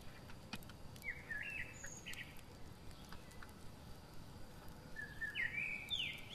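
A songbird singing two short phrases of quick, sweeping chirps, one about a second in and another near the end, with faint scattered clicks between.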